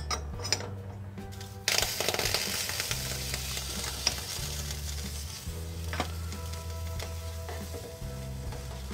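Tiny saucepan of pastina boiling in water on a toy electric stove: a steady bubbling hiss that starts sharply about two seconds in, with a few light metal clinks from the lid and spoon. Soft background music plays underneath.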